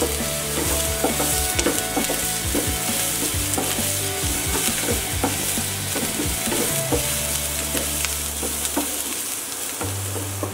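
Chopped onion, green chilli and capsicum sizzling in oil in a non-stick frying pan over a high gas flame, stir-fried with a wooden spatula that scrapes and knocks against the pan again and again.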